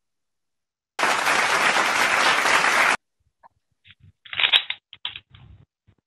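An applause sound effect that starts and stops abruptly, lasting about two seconds. A few short, faint sounds follow over the call audio.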